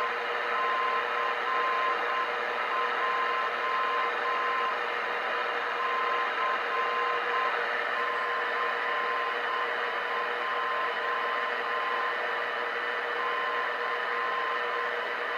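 Radio Shack DX-160 receiver on the longwave band playing steady static, with a thin Morse tone keying on and off in dots and dashes: a longwave non-directional beacon sending its call-sign identifier.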